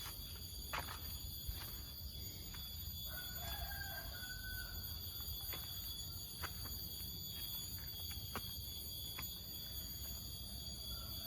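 A rooster crowing once, about three seconds in, a call lasting under two seconds, with another crow starting near the end. Underneath are a steady high-pitched hum and scattered clicks.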